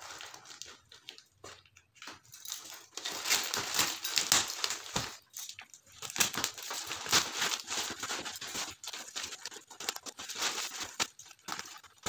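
Scissors snipping through a plastic courier mailer, with the plastic crinkling and rustling in irregular bursts as the package is cut and handled.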